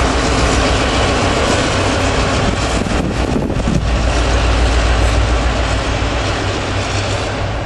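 Arkansas Midland train rolling away down the track, caboose last: a steady rumble of wheels on rail, easing slightly near the end.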